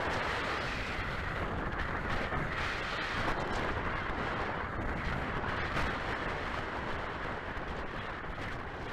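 Wind rushing and buffeting over the onboard camera's microphone on an RC scale glider in flight: a steady rushing noise with a low rumble, easing off near the end as the glider slows to land.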